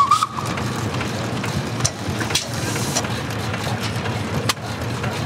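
Old stationary engine running steadily with a low rumble and a few irregular sharp knocks. A brief high whistle-like tone sounds right at the start.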